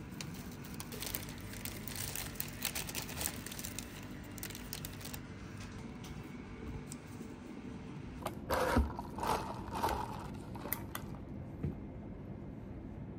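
Crinkling, rustling handling noise, thickest in the first five seconds, with a few louder rustles and knocks about eight and a half to ten seconds in.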